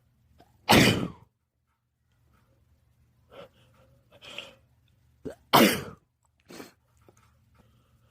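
A man sneezing twice in a sneezing fit, one loud sneeze about a second in and another about five and a half seconds in, with short, quieter breaths in between.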